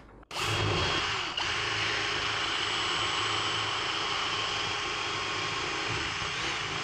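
Cordless drill running steadily as it bores a small hole into a drywall wall. It starts a moment in and dips briefly at about a second and a half.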